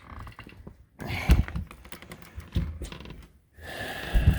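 Footsteps and handling noise: irregular clicks and light clatter, with heavier thumps about a second in and near the end.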